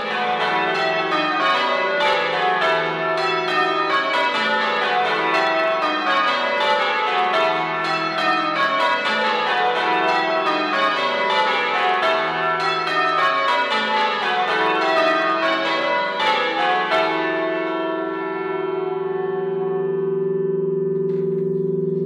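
A ring of ten church bells, cast by Taylors of Loughborough in 1948, rung full-circle by hand: strokes follow one another quickly in repeated runs falling in pitch. About seventeen seconds in the striking stops, and the bells' hum lingers, slowly fading.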